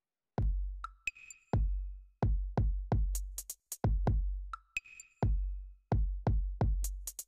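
Background music with an electronic drum beat: deep bass thumps and sharp high clicks in a steady rhythm.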